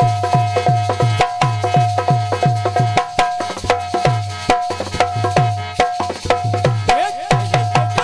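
Devotional kirtan music without singing: a hand drum plays a fast, even rhythm of deep strokes that slide down in pitch, over a harmonium holding one steady note.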